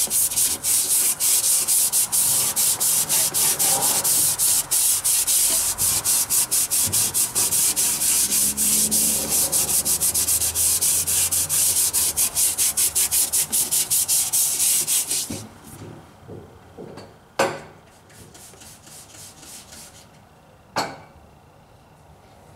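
Scotch-Brite pad wet with WD-40 scrubbed by hand around the lower liner sealing bore of a Caterpillar D13000 engine block: rapid back-and-forth rubbing strokes that stop about two-thirds of the way through. Two sharp knocks follow, a few seconds apart.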